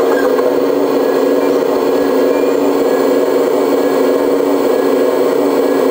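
Hydraulic pump of an RC model Liebherr R 970 SME excavator running with a steady, even hum while the excavator works its sorting grab to clamp a fire extinguisher of around 5 kilograms.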